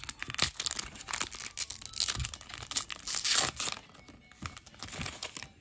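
Pokémon card booster pack being torn open and its shiny foil wrapper crinkled as the cards are pulled out. The crinkling is loudest about three seconds in, then gives way to quieter handling of the cards.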